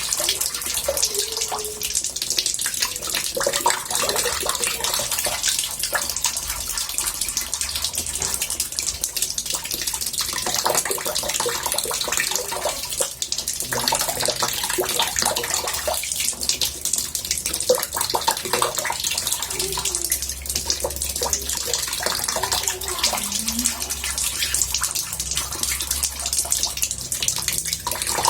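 Water running from a tap into a bathtub: a steady, unbroken splashing.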